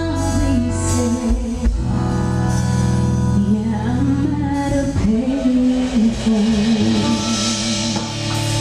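Live acoustic pop song: a female singer holds out the last sung line over guitar and band accompaniment, with a long wavering note near the end.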